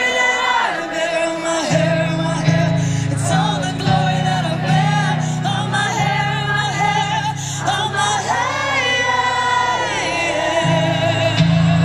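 Live pop ballad: a woman singing long, sliding held notes into a microphone over piano chords with low bass notes that change every second or so.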